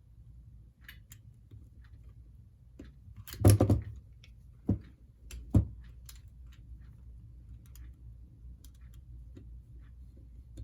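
Small clicks and taps from handling a model locomotive and a screwdriver on a work surface. A brief cluster of louder knocks comes about three and a half seconds in, followed by two single sharp knocks about a second apart.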